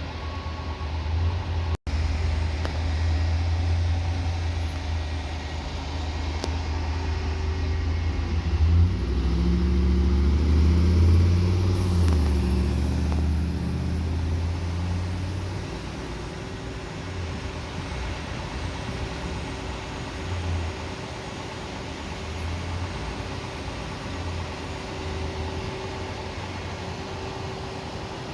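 Fire truck engine running: a heavy low rumble that swells louder for several seconds about a third of the way in, then settles back to a steadier, quieter running sound. The sound cuts out for an instant about two seconds in.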